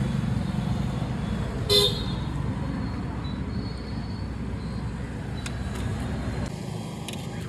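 Street traffic with a vehicle engine running steadily close by, and one short horn toot just under two seconds in.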